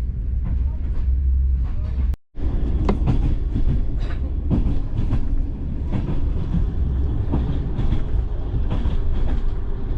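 Passenger train running on the line: a steady low rumble with frequent irregular knocks and clicks from the wheels and the rattling carriage. The sound cuts out completely for a moment about two seconds in.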